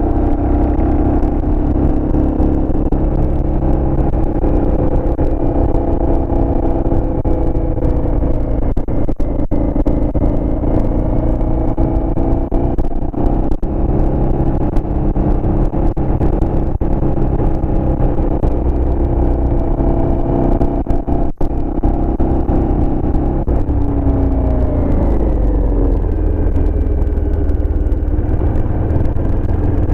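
Aprilia Shiver's V-twin engine running steadily as the motorcycle is ridden. About 24 seconds in its pitch falls as the revs drop, then it holds steady at the lower note.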